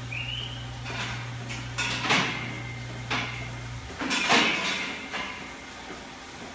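A steady machine hum that cuts off about four seconds in, with a brief rising squeak at the start and a series of sharp clattering knocks, one of them briefly ringing.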